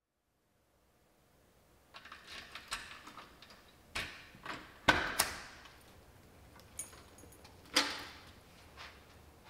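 A front door being unlocked and opened: keys jangling and a string of sharp clicks and knocks from the lock and handle, the loudest about halfway through.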